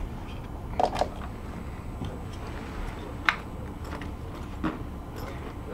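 Steady low rumble inside a commuter train waiting at the platform, with a few sharp clicks and knocks, the loudest a little past three seconds in.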